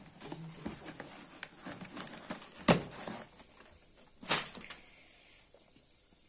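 Hands rummaging in a cardboard shipping box and handling the packaging, with small taps and scrapes throughout. There is a sharp knock about two and a half seconds in and a second, softer knock about four seconds in.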